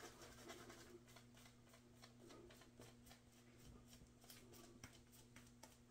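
Faint, soft scrubbing of a synthetic-knot shaving brush working shaving-soap lather over the face and beard in quick strokes, over a low steady hum.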